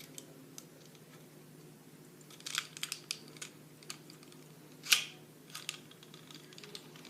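Small metal clicks and scrapes of 1911 pistol parts being handled as the slide lock is fitted back into the frame, a few clicks in a cluster and the sharpest one about five seconds in.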